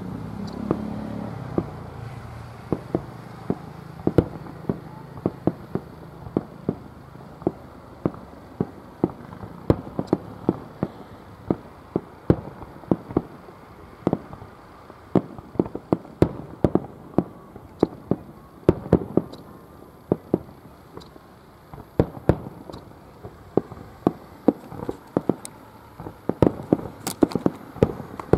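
Aerial fireworks bursting in quick succession: a continuous run of sharp bangs and pops, several a second, with a low rumble in the first couple of seconds.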